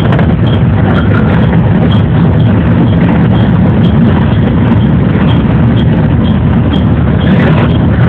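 JR 113 series electric train running, a steady low rumble of wheels and running gear heard from inside the cab.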